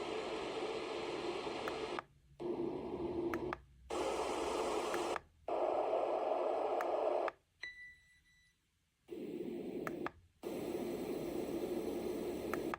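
YogaSleep Nod sound machine playing its wind-like white-noise setting: a steady hiss that cuts off and resumes several times in short gaps. A brief high tone sounds a little past the middle, followed by a second or so of near silence.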